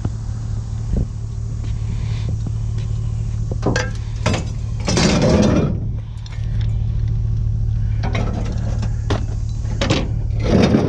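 Vehicle engine idling steadily, with several clanks and scraping bursts of scrap metal being handled, the loudest about five seconds in and another near the end.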